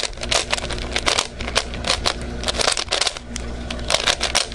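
A plastic 3x3 speedcube being turned fast in the hands: a rapid, irregular run of clicks and rattles from its layers.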